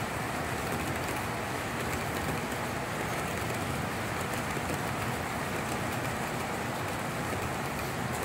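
S gauge model freight train rolling along its track: a steady rumble of many metal wheels running on the rails.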